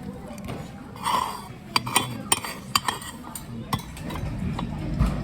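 Tableware clinking as someone eats: a spoon or chopsticks knocking against a bowl and dishes, about six sharp clinks in the middle.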